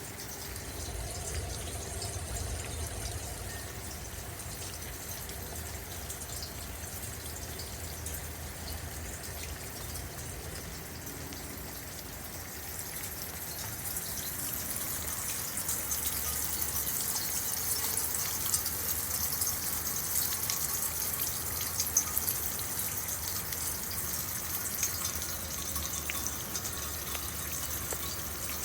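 Rainwater running and splashing down a rain chain, a steady gushing trickle with scattered drips, growing louder about halfway through.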